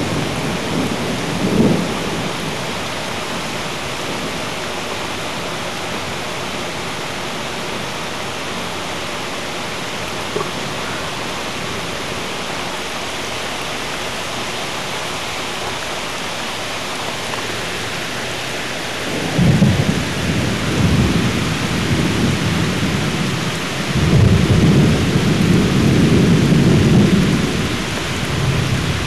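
Thunderstorm: steady rain throughout, with rolling thunder, a brief rumble near the start and two longer rumbles in the last third, the second lasting several seconds.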